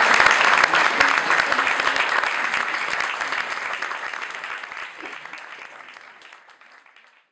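Audience applauding, many hands clapping, the clapping fading steadily and stopping near the end.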